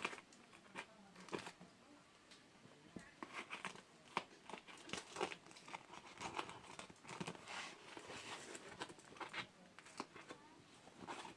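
Packaging being handled and opened by hand: faint, irregular crinkling and tearing with scattered small clicks.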